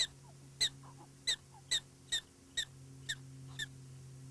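Black-tailed prairie dog giving its alarm bark: a sharp, high chirp repeated about twice a second, growing fainter toward the end. It warns the colony of a person nearby and tells the intruder to go away.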